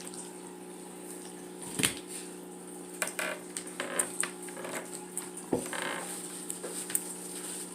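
Eating and handling seafood-boil food: scattered clicks, cracks and crunches as shells are picked apart and food is chewed, the sharpest about two seconds in and again past five seconds, over a steady low hum.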